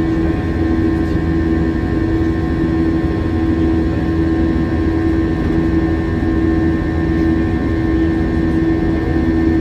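Airbus A321's IAE V2533-A5 turbofan engines in the climb, heard from inside the cabin over the wing: a steady drone with a strong low hum and higher whining tones over a low rumble.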